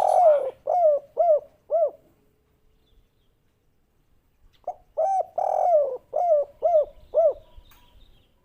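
Spotted dove singing its three-note 'kuk 3' song: the end of one phrase, a long coo followed by three short notes, then after a pause of about two and a half seconds a second full phrase of coos that again closes with three short notes.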